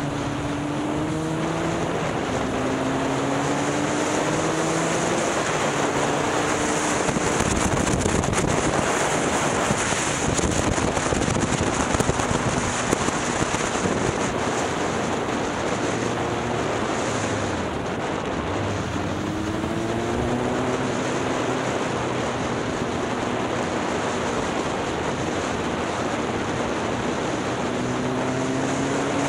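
Motorcycle engine accelerating, its note rising in steps as it is run up through the gears near the start and again in the last third, under heavy wind noise on the microphone from riding at speed.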